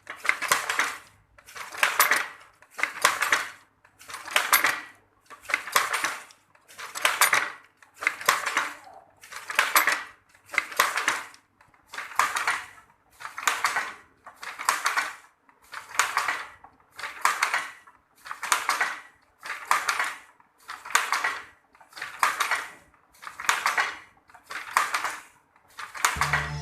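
Hand-operated traditional wooden weaving loom at work on sarong cloth: a steady clattering rhythm of about one stroke a second, each stroke the shuttle's pass and the beat of the batten.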